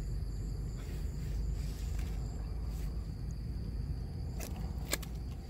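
Insects chirring in steady thin high tones over a low outdoor rumble, with two sharp clicks near the end.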